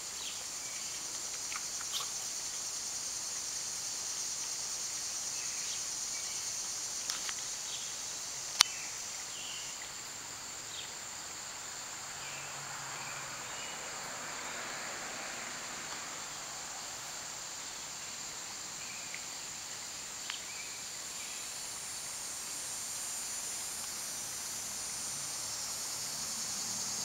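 Steady high-pitched chirring of insects, with a few sharp clicks scattered through it, the loudest about eight and a half seconds in.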